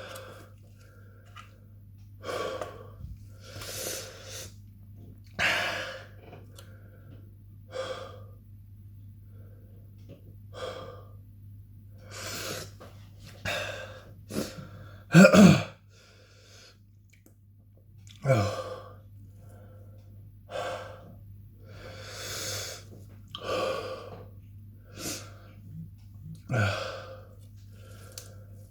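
A man breathing hard through his mouth in short, sharp gasps about once a second, his mouth burning from an extremely hot chili. Three times a short voiced catch or grunt comes from his throat, the loudest about 15 seconds in.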